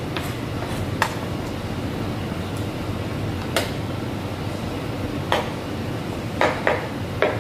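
Kitchen cookware and utensils clinking and knocking, about six irregular sharp strikes, over a steady background noise of kitchen equipment running.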